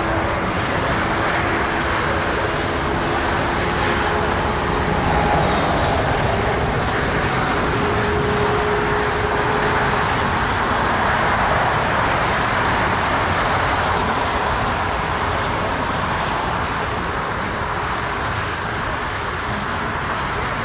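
Jet engines of a taxiing Boeing 757 at low power, a steady rushing drone with no change in level.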